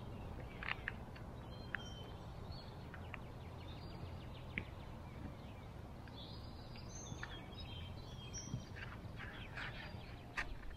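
Songbirds chirping and calling in short high notes scattered throughout, over a low steady background rumble. A few brief scratchy clicks come through, more of them near the end.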